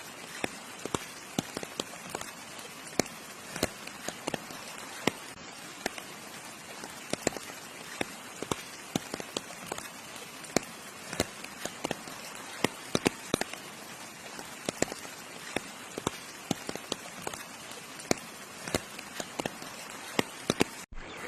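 Steady rain with many sharp, irregular drop impacts close by, big drops striking a nearby surface over the hiss of the downpour.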